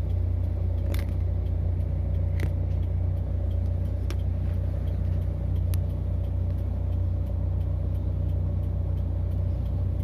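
A steady low mechanical hum from a running machine, with a few faint clicks over it.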